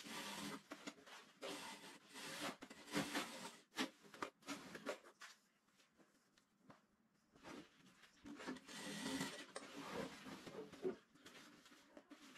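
Industrial sewing machine running in short, stop-start stretches while brocade fabric rustles as it is handled, with a quiet pause about halfway through.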